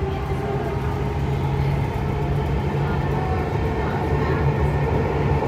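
Dubai Metro train running at speed through a tunnel, heard from inside the carriage: a steady low hum and rumble.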